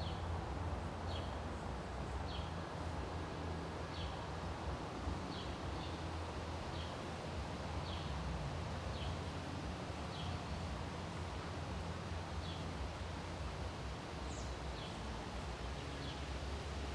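A bird calling a short, high, falling chirp over and over, about once a second, over a steady low outdoor rumble.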